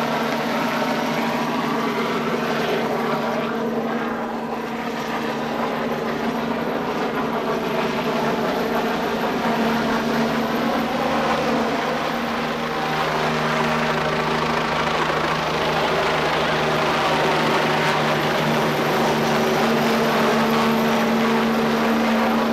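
Helicopter circling low overhead, its rotor and engine noise steady and getting louder about halfway through.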